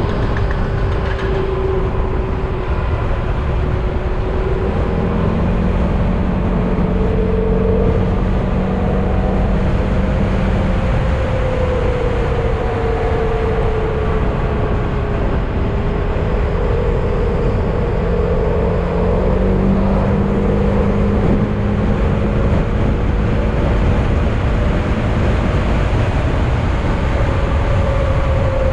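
Yamaha XMAX scooter's single-cylinder engine running on the move, its note drifting up and down with the throttle, under steady wind and road noise.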